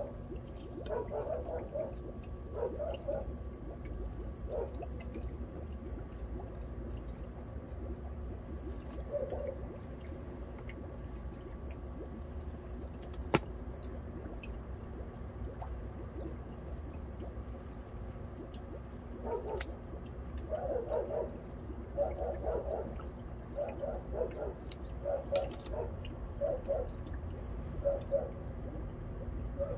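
Water gurgling and trickling in irregular bursts, with a steady low hum underneath and a couple of sharp clicks.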